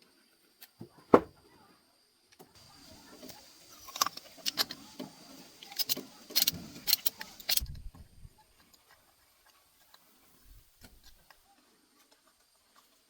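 One sharp clack, then a few seconds of clinking and rattling of metal tools and parts during car repair work, stopping abruptly a little past halfway.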